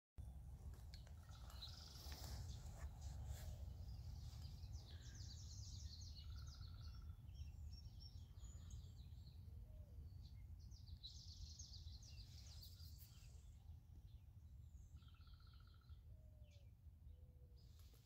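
Faint outdoor ambience with small songbirds chirping and trilling at intervals over a low steady rumble, with a few short whistled notes near the end.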